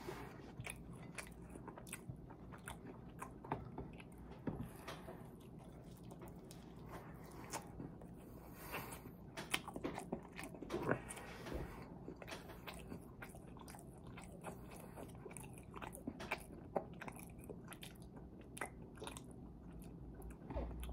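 A person chewing mouthfuls of french fries and bacon cheeseburger, with many irregular wet clicks and smacks of the mouth and an occasional crunch.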